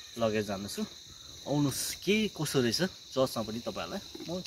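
A man talking, over a steady high-pitched drone of insects in the surrounding vegetation.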